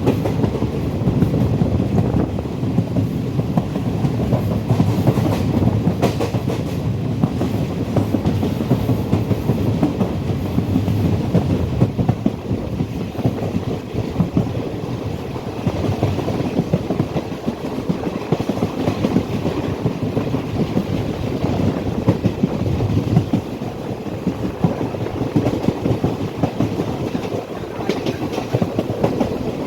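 Passenger train running along the track: a steady low rumble with wheels clattering over the rails.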